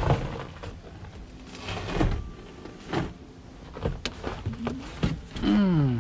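Nissan D21 pickup's floor carpet being lifted and dragged over the floor pan and seatbelt buckles: rustling and scraping, with several knocks about a second apart. Near the end, a short tone falling in pitch.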